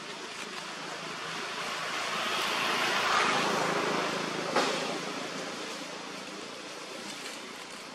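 A broad rushing noise that builds to a peak about three seconds in and then fades away, with a single sharp snap about halfway through.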